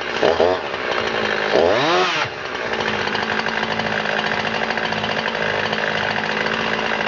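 Husqvarna 350 two-stroke chainsaw engine revved twice, briefly and then harder, before dropping back about two seconds in to a steady idle.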